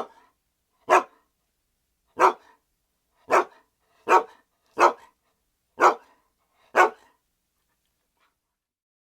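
A dog barking: eight single barks, spaced about a second apart, that stop about seven seconds in.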